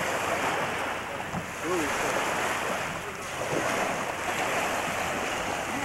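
Steady rush of wind on the microphone and small waves lapping in shallow seawater, with no engine running.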